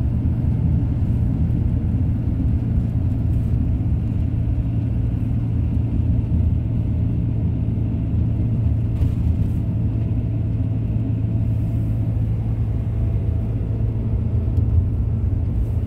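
Camper van driving, heard from inside: a steady low engine and road rumble that holds even throughout.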